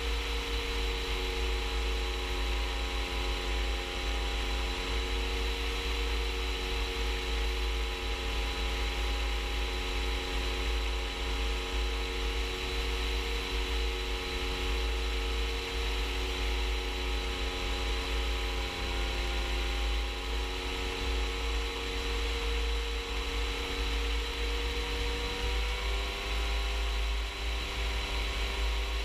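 Rans S-14 light aircraft's engine running steadily in flight, with wind rumbling on the outside-mounted microphone. About 26 seconds in, the engine's pitch steps up a little.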